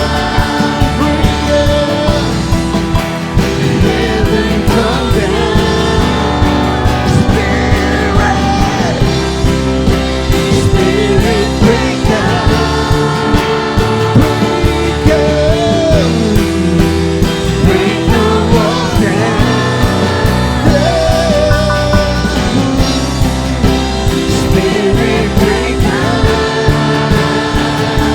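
Live worship band playing an upbeat rock-style song with a steady drum beat, with voices singing over it.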